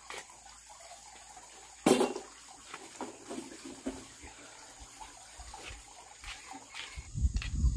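A woven bamboo back basket being handled and shouldered: one sharp knock about two seconds in, then light clicks and rustles, with a low rumbling noise coming in near the end.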